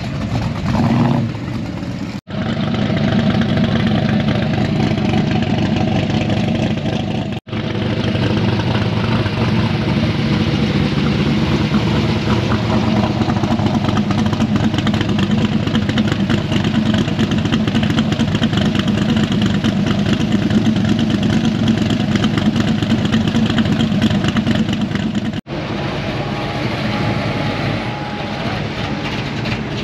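Drag-race street car engines running loud and mostly steady. The sound cuts out for an instant three times.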